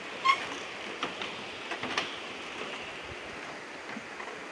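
Steady rush of a shallow river flowing over stones. A few knocks and clacks of bamboo footbridge slats underfoot come in the first two seconds, the loudest just after the start.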